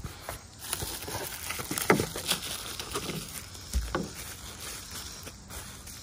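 Bubble wrap and a cardboard box crinkling and rustling in irregular crackles and clicks as a shift knob is unwrapped, with a low thump about four seconds in.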